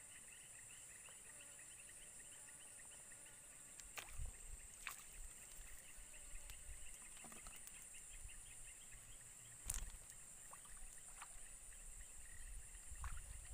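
Quiet swamp-edge ambience: a steady high-pitched insect chorus, with a few sharp clicks and low bumps. The loudest bump comes a little before ten seconds in.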